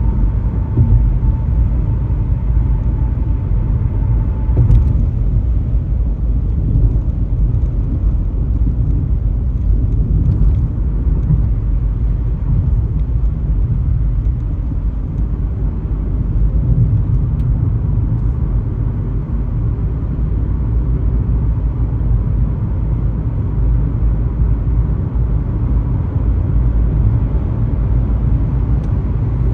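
Car driving on a highway: a steady low rumble of engine and tyre road noise. A faint high tone sounds for the first few seconds, then stops.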